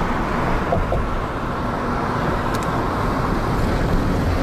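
Steady road noise and low wind rumble from a car driving along.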